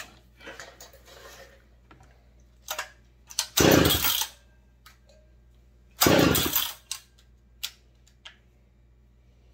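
McCulloch PM 700 chainsaw pulled over twice on its recoil starter, each pull a short rasping burst, the second about two and a half seconds after the first, without the engine catching. The owner suspects it may be flooded.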